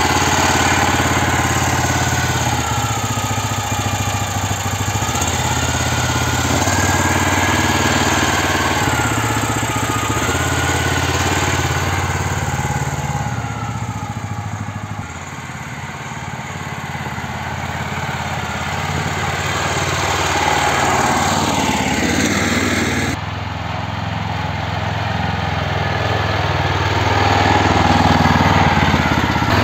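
Homemade articulated four-wheel-drive mini tractor's engine running as it drives over snow, its pitch rising and falling. The sound grows quieter midway and louder again near the end.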